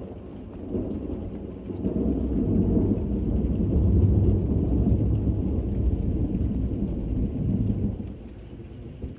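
A long roll of thunder: a deep rumble that builds over a couple of seconds, peaks about four seconds in and fades away by about eight seconds, over steady rain.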